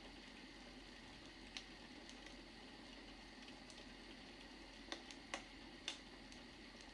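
Wood fire crackling faintly: a soft steady hiss with sparse, irregular sharp pops and snaps, several of them clustered near the end.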